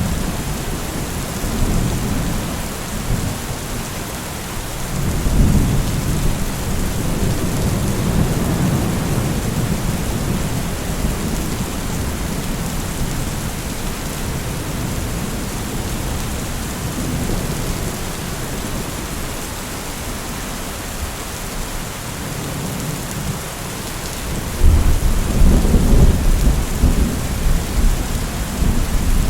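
Steady rain falling, with rolling thunder rumbling in and out and a louder roll of thunder near the end.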